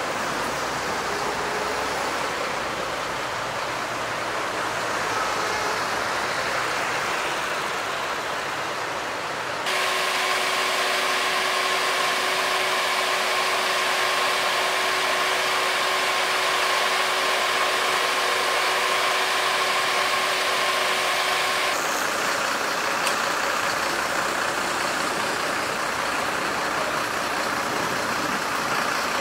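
Emergency vehicles' engines idling, a steady din of running motors. In the middle stretch a steady two-note hum joins in, and it stops abruptly near the end.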